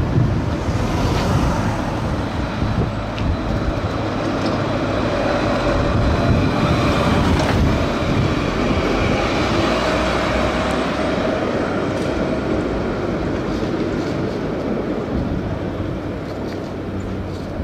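Tram running on street tracks, mixed with a large truck's engine and tyres driving close past about seven seconds in.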